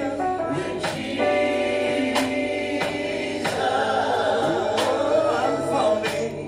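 Gospel song: a choir of voices singing long held notes over instrumental backing, with occasional drum or cymbal hits.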